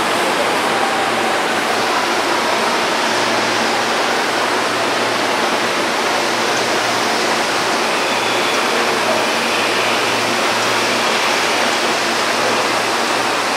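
Steady rushing noise of a busy train station at rush hour, with a faint low hum that comes and goes.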